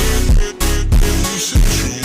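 Background music with a steady beat and deep bass hits about twice a second.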